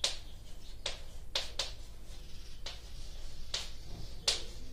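Chalk scratching and tapping on a blackboard as words are handwritten: about seven short strokes at uneven intervals, with a faint steady low hum underneath.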